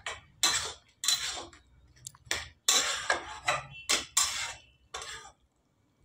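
Flat spatula scraping and stirring sponge gourd pieces around a non-stick kadhai: a quick run of about ten scraping strokes, roughly two a second, that stops near the end.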